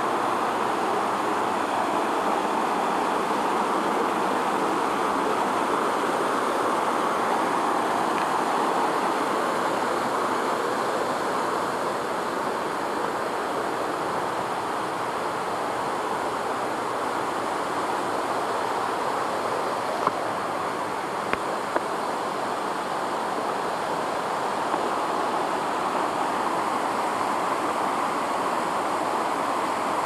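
Steady rushing of a mountain stream tumbling over small rock cascades. A few small knocks about two-thirds of the way through.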